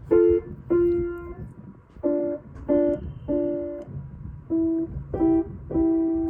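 Piano-like keyboard notes played as two-note chords in short groups of two or three, each group ending on a longer held note.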